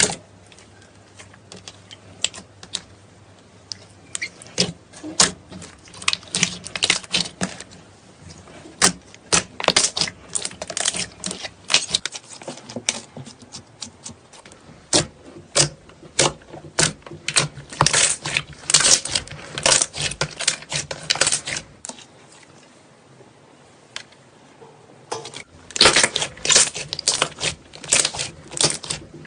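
Slime being squeezed and worked by hand, giving rapid runs of crackling clicks and pops, with a few seconds' pause near the end before the crackling starts again.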